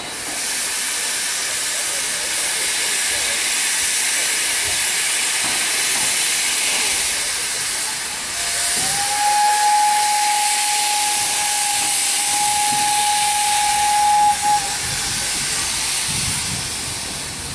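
DR class 44 three-cylinder steam locomotive hissing steadily as it vents steam. About nine seconds in, a thin steady whistle tone that rises briefly at its start sounds for about six seconds.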